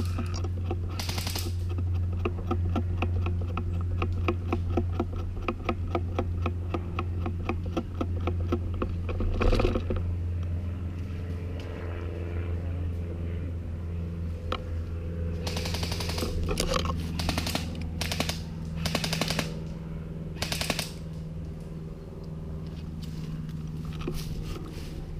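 Airsoft gun firing on full auto: a long string of rapid, evenly spaced shots lasting about nine seconds, over a steady low hum. A few shorter noisy bursts follow in the second half.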